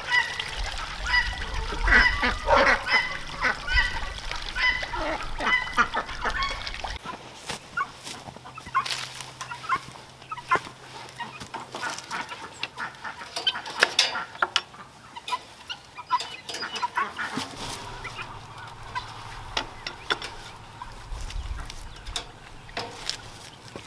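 Ducks calling and splashing in a plastic wading pool, then a scatter of sharp clicks and knocks as a wooden gate in a wire fence is opened and latched.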